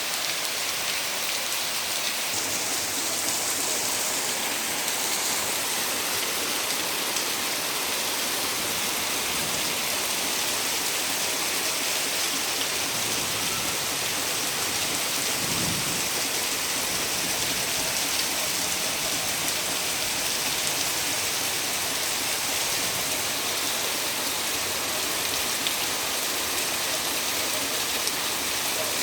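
Heavy rain pouring steadily among big garden trees, an even hiss of drops. There is a brief low rumble about halfway through.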